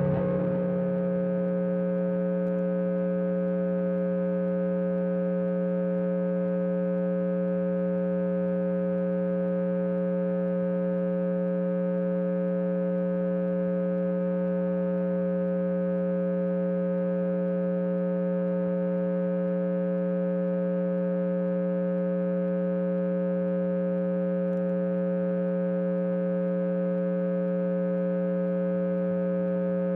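Steady electric hum from an electric guitar's amplified, distorted signal chain left live while nothing is played: one unbroken buzz rich in overtones that neither rises nor fades.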